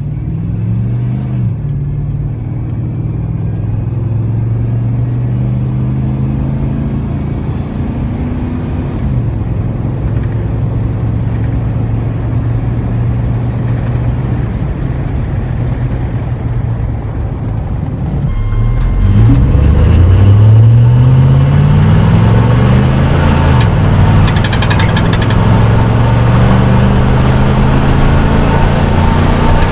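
5.3L LM7 V8 of a 1999 Chevrolet Silverado running through a Cherry Bomb muffler while driving. The exhaust note holds mostly steady, then gets louder about eighteen seconds in as the pitch climbs and drops several times under hard acceleration through the gears.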